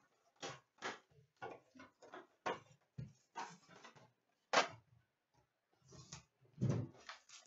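Hands handling and opening a cardboard card box and its wrapped card packs: an irregular string of short crinkling, rustling noises, with a heavier thump a little before the end as the box meets the glass counter.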